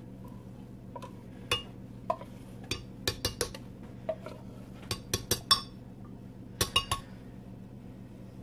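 Metal spoon clinking and tapping while sweetened condensed milk is scraped from its can into a glass blender jar: a dozen or so sharp, irregular clinks, some in quick runs of two or three.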